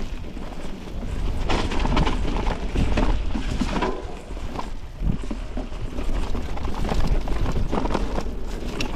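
Mountain bike riding over a rough trail: irregular knocks and rattles from the tyres and bike on rocks and roots, over a steady low rumble of wind on the microphone.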